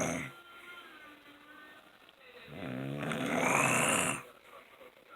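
A man snoring in his sleep. The end of one snore is heard at the start, then a short pause, then one long snore about two and a half seconds in that stops abruptly near the four-second mark.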